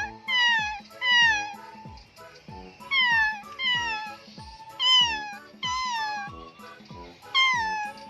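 Fake kitten cries made by a person: a run of short, high mews, each falling in pitch, about eight in all with a pause about two seconds in, over background music.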